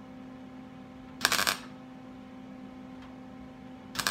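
Two short MIG tack welds on a sheet-steel quarter-panel patch, each a brief burst of arc noise about a third of a second long, the first about a second in and the second near the end. They are stitch tacks, laid one at a time to join the patch panel without warping the metal.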